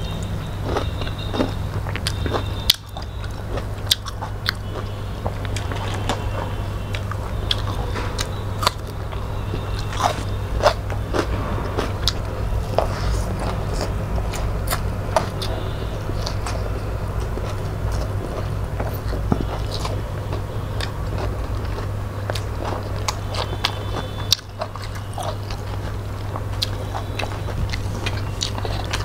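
Close-miked chewing and lip-smacking of two people eating cooked leafy greens (saag) and rice by hand, with many small wet clicks and smacks, over a steady low hum.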